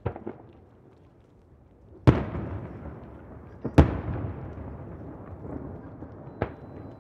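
Aerial firework shells bursting: a couple of small pops at the start, then two heavy booms about two seconds in and just before the middle, the second the loudest, each followed by a long echoing rumble off the surrounding bay, and a sharp crack near the end.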